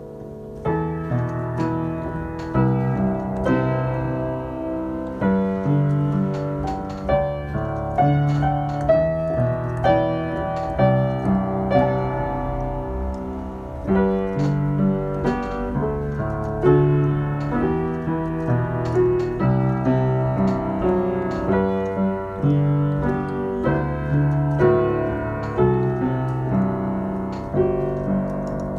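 Background piano music: a slow line of notes, struck about once or twice a second, over low chords that change every second or so.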